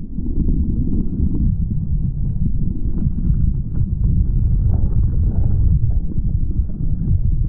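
Wind buffeting a camera microphone mounted low on a Hobie 16 catamaran's hull, mixed with water rushing and splashing against the hull as the boat sails fast. It comes through as a loud, dull, low rumble with little high sound in it.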